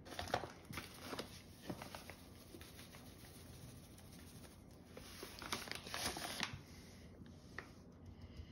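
Hands rubbing curing salt into a slab of pork and rolling it on a chopping board: faint, scattered gritty scraping and rustling, busiest in the first two seconds and again around six seconds in.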